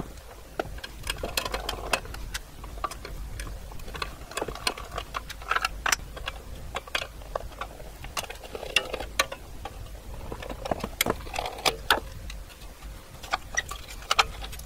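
Screwdriver unscrewing the small screws of the metal board clamps in an IBM 5120 electronics-box card cage: irregular light clicks and scrapes of metal on metal, with hands handling the cage.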